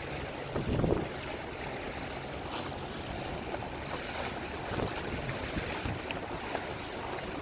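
Wind buffeting the microphone and waves washing against a boat under way in choppy water, with a louder low gust or thump a little under a second in.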